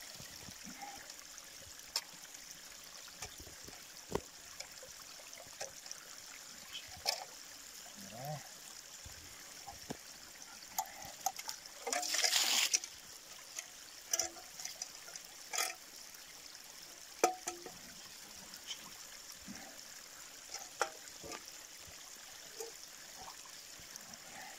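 Small forest stream trickling steadily, with scattered knocks and clinks as a metal mess tin is dipped and rinsed in it. About halfway through, the tin is emptied, and the water gushes out and splashes for under a second.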